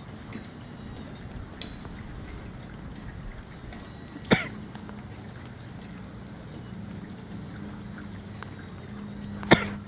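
Gusty wind and rain: a steady rushing noise with two sharp taps, one a little before halfway and one near the end.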